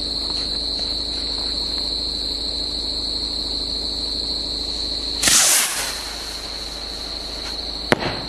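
Crickets chirring steadily. About five seconds in, a bomb rocket launches with a short, loud whoosh that fades within a second. Near the end, a single sharp crack comes as it bursts in the air.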